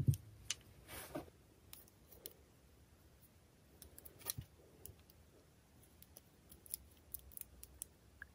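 A low knock at the start, then scattered light clicks and a brief scrape about a second in, from small nail-art tools being handled close to the microphone.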